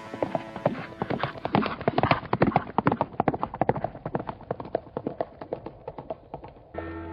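A horse's hooves galloping in a rapid uneven rhythm, growing louder and then fading away. A held music chord comes in near the end.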